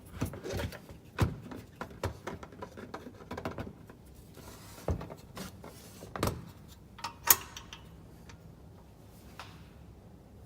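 Irregular clicks, knocks and rustling of hands working on a circular saw's parts, with a sharp metallic click about seven seconds in.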